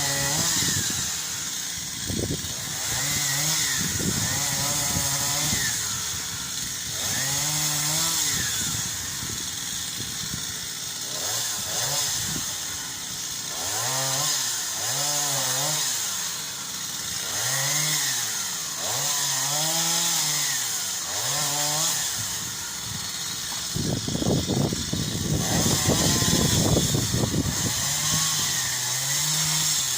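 Chainsaw revving up and dropping back again and again in short bursts of throttle, about one every two seconds, as it cuts branches. It goes rougher and noisier for a few seconds near the end.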